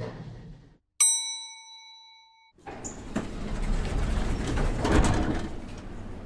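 Elevator arrival chime: a single bell-like ding about a second in that rings out for about a second and a half, followed by a rumbling rush that swells and eases over about three seconds as the elevator doors slide open.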